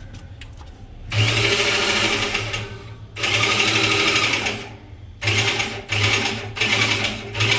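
Small power tool's electric motor running in repeated bursts: two runs of a second and a half or more, then three shorter ones of well under a second each, started and stopped on command.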